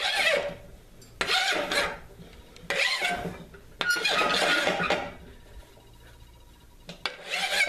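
Hand file rasping across a high-carbon steel railroad spring clip held in a vise, in five separate strokes with a longer pause before the last one. These are test strokes, showing how easily the file cuts the clip.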